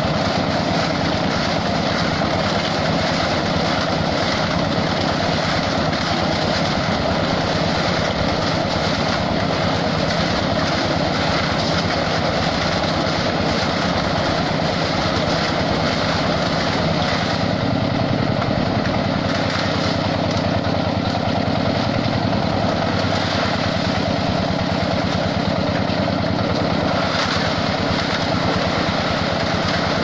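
Portable drum concrete mixer running steadily, its engine and turning drum churning wet concrete; the sound grows deeper past the halfway mark.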